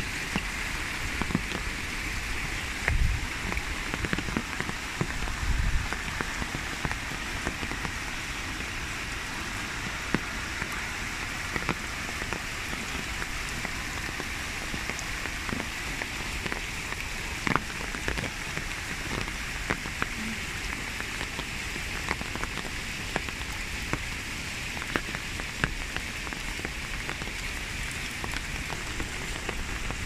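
Steady rain falling on wet stone paths and garden shrubs: an even hiss with scattered sharp drop ticks, and a few low thumps in the first six seconds.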